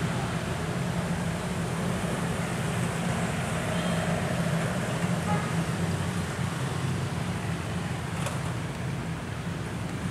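Diesel train engines running with a steady low hum over a wash of noise, with a short click about eight seconds in.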